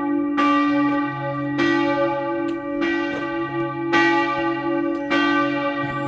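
Church bells ringing loudly, a stroke about every second, with a deep hum that rings on between strokes. They are rung live rather than played from a recording, as the listener believes.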